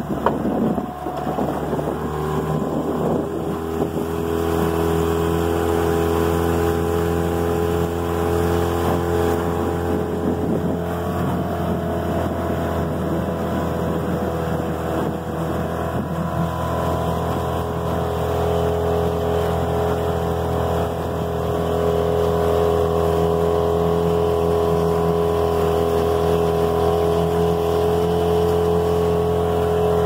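Small boat's motor running steadily while underway, with a steady hum over a rush of wind and water; it grows a little louder over the first few seconds, then holds an even pitch.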